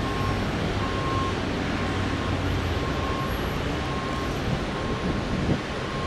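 Steady road traffic noise with a low engine hum through the first half. A faint high beep repeats about once a second, like a vehicle's reversing alarm. A short rising sweep comes near the end.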